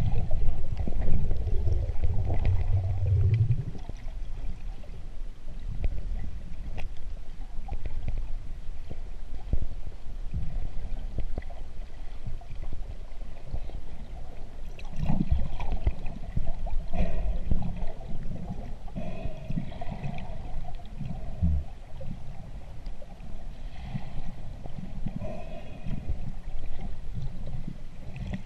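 Muffled underwater sound picked up through a diving camera's housing: a low rumble of moving water with scattered clicks and knocks, loudest in the first few seconds.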